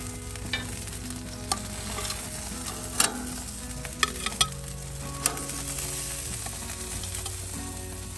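Beef patties sizzling on a gas grill grate while a metal spatula scrapes under them and clinks against the grate and plate as they are lifted off, giving a handful of sharp clicks, the loudest about three seconds in.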